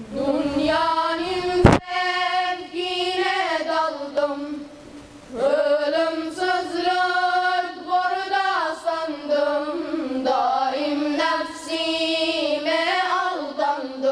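Boys' choir singing a devotional hymn in unison, in long held and gliding phrases. A single sharp knock cuts through the singing about two seconds in.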